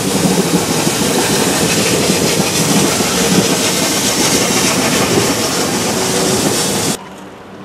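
Loud, steady rushing and rumbling of the 1873 SLM vertical-boiler rack steam locomotive No. 7 pulling away uphill. The sound cuts off abruptly about seven seconds in.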